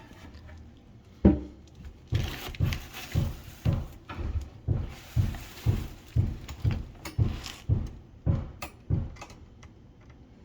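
Hollow knocking and bumping, roughly two knocks a second with some scraping between, as a loose built-in ice machine is rocked and pulled in its cabinet opening. The knocking stops about nine seconds in.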